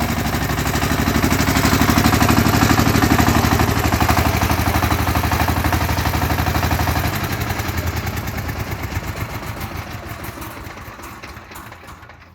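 Mini tractor engine running with a fast, even pulse. It is loudest a few seconds in, then fades steadily over the second half.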